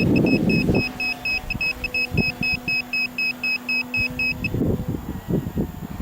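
Rapid electronic beeping, about five short high beeps a second, that stops about four and a half seconds in. Wind buffets the microphone at the start and again near the end.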